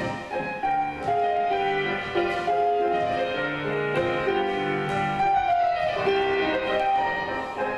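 Piano music playing, a melody of held notes moving from note to note.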